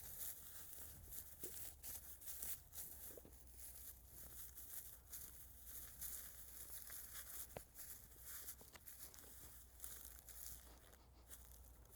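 Faint, irregular crackling and rustling with a low steady hum beneath.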